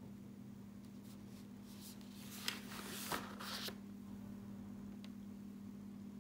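Sheets of paper rustling as they are handled on a desk, with two sharp clicks in the middle, over a steady low hum.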